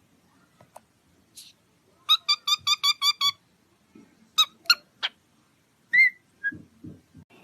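A parrot calling: a quick run of about seven short, high-pitched calls a couple of seconds in, then a few single calls and a short whistle, with some soft knocks near the end.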